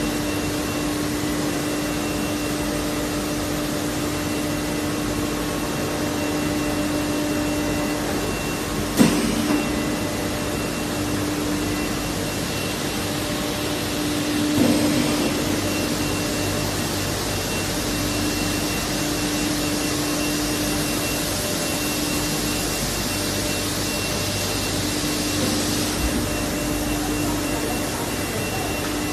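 Rubber profile extrusion and vulcanization line running: a steady mechanical drone with a constant low hum and a fainter high whine over a hiss. A sharp knock comes about nine seconds in, and a softer thump around halfway.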